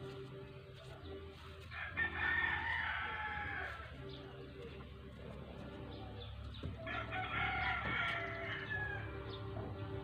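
A rooster crowing twice, once about two seconds in and again about seven seconds in, over a steady low hum.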